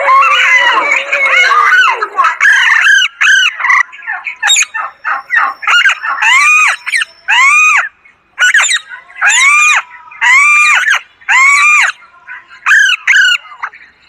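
Alexandrine parakeet calling loudly: a jumble of chatter at first, then a series of calls, each rising and falling in pitch, repeated about once a second in the second half.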